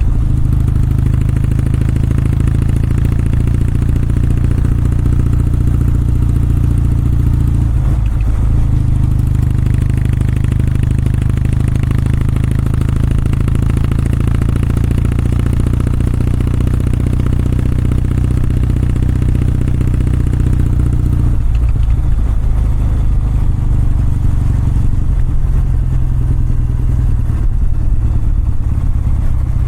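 Exhaust of a Kawasaki W650's air-cooled parallel-twin engine, heard while the motorcycle is ridden, a steady low note under load. The note breaks off briefly twice, about eight and twenty-one seconds in, before carrying on.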